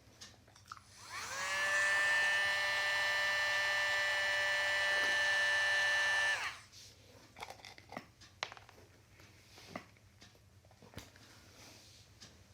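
Dremel Micro rotary tool switched on, its high whine rising as the motor spins up, running steadily for about five seconds, then switched off and winding down quickly. A few faint clicks follow.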